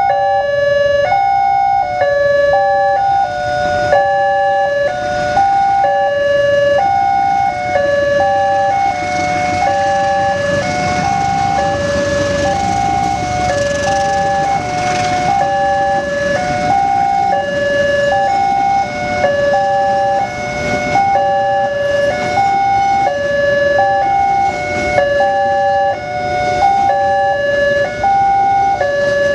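Two different railway level-crossing warning sirens sounding together. Each alternates between two tones about every half second, and the two run out of step so their tones overlap and clash. A broad rumbling noise swells in the middle and fades.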